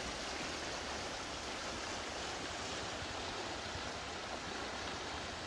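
Shallow river running fast over stones after rain: a steady, even rush of water.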